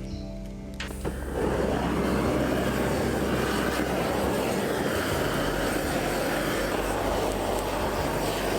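Charcoal fire burning in the core of a clay bell mould with a steady rushing noise, drying the mould before the bronze pour. The noise starts about a second in.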